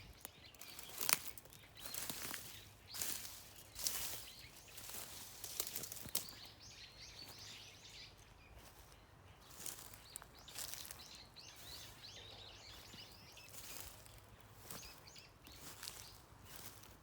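Outdoor ambience: irregular rustles and clicks, with small birds chirping faintly in the background.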